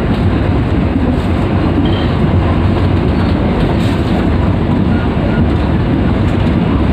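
Passenger train coach running at speed, heard from inside the car: a steady, low-heavy running noise of wheels on the rails.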